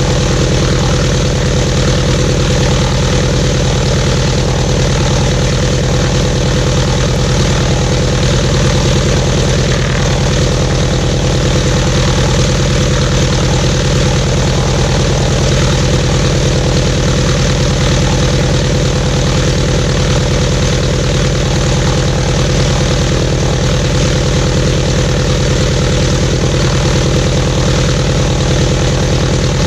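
Seven-cylinder Jacobs R-755-B2 radial engine of a Cessna 195B running steadily with its propeller turning, at a constant low speed with no change in rpm.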